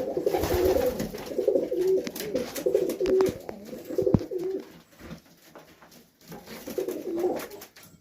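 Serbian Highflyer pigeons cooing in low repeated phrases for the first four seconds or so. After a quieter stretch there is more cooing about seven seconds in. Light sharp taps are scattered through it.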